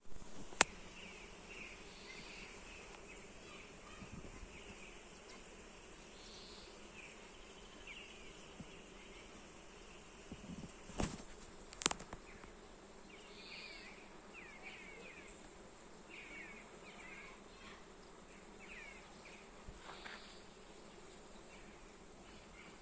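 Steady hum of many bees working a flowering linden tree. A few sharp clicks cut through it, once near the start and twice about halfway.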